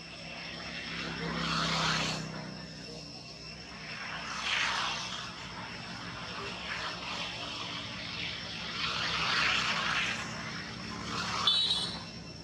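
Insects chirring steadily in several high tones, while a broad rushing noise swells and fades three times. A short, sharp high squeak comes near the end.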